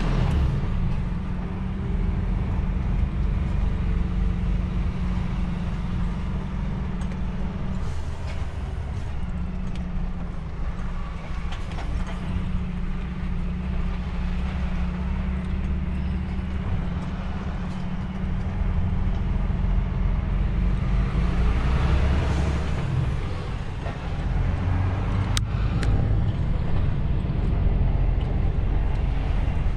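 Heavy truck's diesel engine and road noise while driving: a steady low drone with a hiss of tyre and wind noise above it, swelling a little about twenty seconds in and again near the end. A single sharp click about twenty-five seconds in.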